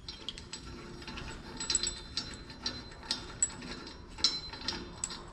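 Irregular metallic clicks and clinks of hand tools working on the brush cutter's steel parts, with some ratchet-like clicking, as the loose blade-carrier nut is worked on.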